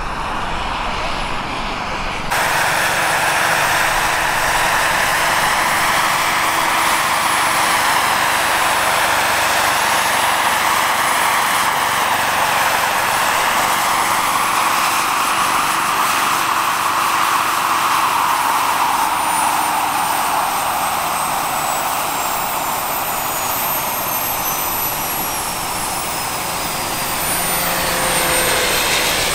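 Model gas turbine and main rotor of a large RC Bell 206 JetRanger helicopter running, a steady rush with a high thin whine. The level steps up abruptly about two seconds in. From about halfway through, the whine falls slowly in pitch as the turbine winds down with the model set down.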